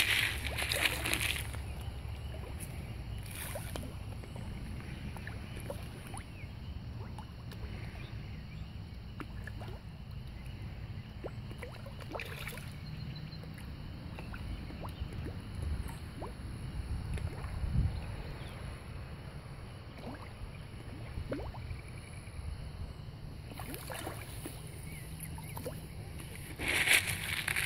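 Small splashes and water movement at a pond's surface, with a low wind rumble on the microphone; a louder splash right at the start and again near the end.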